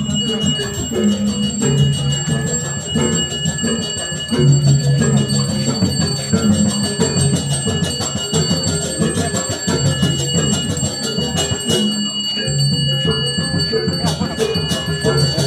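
A bell rung continuously, its steady high ringing over rapid metallic strikes and low music whose pitched notes change about once a second.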